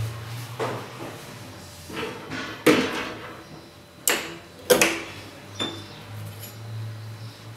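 Metal-framed casement window being unlatched and pushed open: about five sharp metallic knocks and clicks from the latch and frame, the loudest near the middle.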